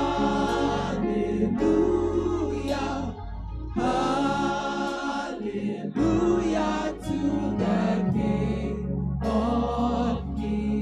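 A gospel choir singing a hymn in phrases a few seconds long, over sustained low accompaniment notes.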